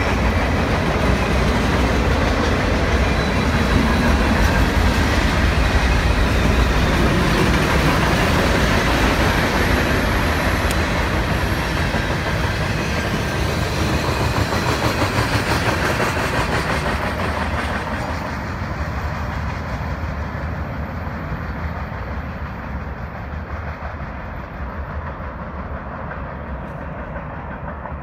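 Freight train cars rolling past on the rails, a steady wheel-and-rail noise that fades away over the last ten seconds or so as the end of the train recedes.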